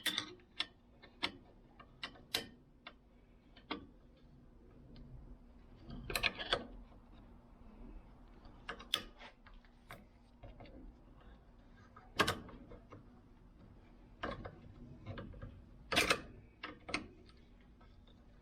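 Irregular clicks, clinks and knocks of hand tools being handled and moved about while someone looks for a wrench, with two louder knocks in the second half, over a faint steady hum.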